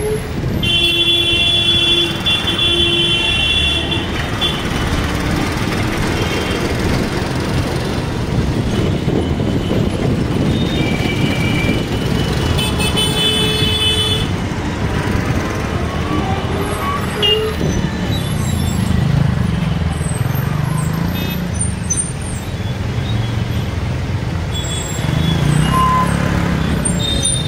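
Steady engine and road noise of a city bus moving through traffic, with vehicle horns honking: one horn held for about three seconds near the start and another for a couple of seconds around the middle.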